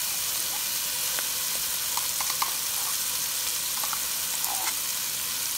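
Hot olive oil sizzling in a large nonstick pot, frying ginger-garlic paste, red chutney and curry leaves: a steady hiss with scattered small crackles.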